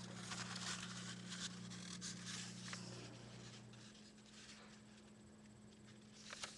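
A sheet of printer paper rustling and crinkling faintly as it is folded lengthwise by hand, with soft creasing sounds mostly in the first few seconds and a small click near the end.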